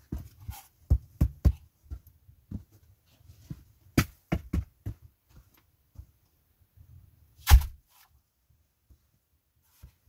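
Wooden knocks and thuds as a door made of upright wooden poles is handled and pulled shut, a run of sharp knocks in the first five seconds and one loudest thump about seven and a half seconds in as it closes.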